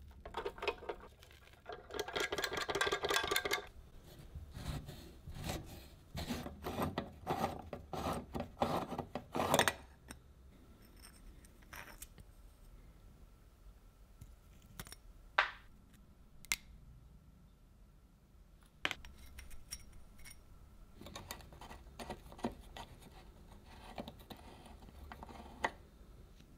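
An old rusty steel mining lamp, made around 1945 by Frivo, handled and taken apart by hand. First grit and dirt rattle and scrape as the housing is shaken out, loudest a couple of seconds in. Then come scattered clicks and taps of metal and glass parts, and more scraping near the end.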